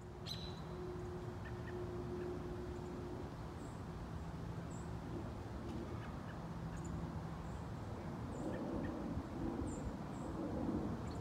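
Quiet woodland ambience: a low steady hum under faint, scattered short high bird chirps.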